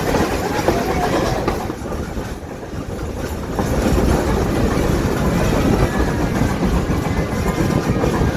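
A train running along the track, a steady noise that eases off about two seconds in and builds up again a couple of seconds later.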